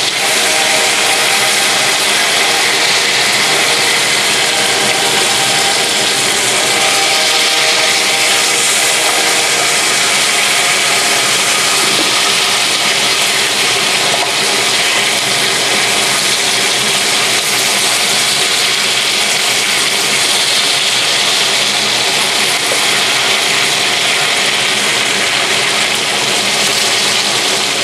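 Nile perch fillets frying in hot oil: a loud, steady sizzle of bubbling oil.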